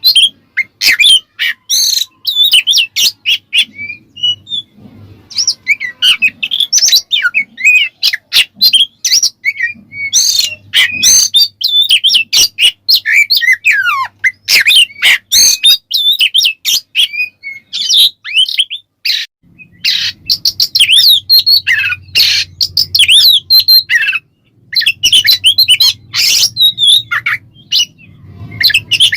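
Oriental magpie-robin (kacer) singing a loud, full song: rapid, varied phrases of whistles, trills and harsher notes with short pauses between bursts.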